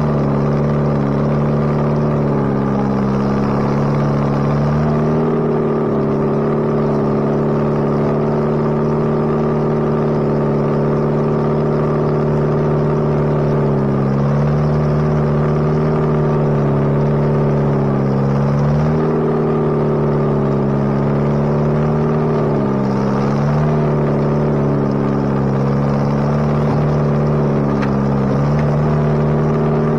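Bobcat 642B skid steer's diesel engine running steadily, heard from the operator's seat in the open cab, after a head gasket replacement. Its pitch dips briefly and recovers about five times as the machine is driven and the bucket worked.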